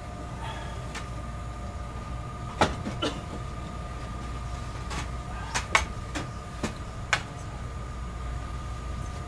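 Chicago 'L' rapid-transit car on the move, heard from inside: a steady low rumble and hum with a held tone, and a string of sharp clunks about two and a half to seven seconds in as the wheels cross rail joints and switches.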